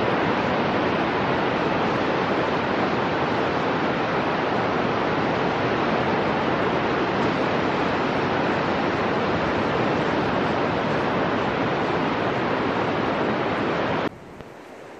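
Steady, loud rushing of wind and surf on an open beach, even throughout with no breaks, cutting off abruptly about fourteen seconds in to a much quieter background.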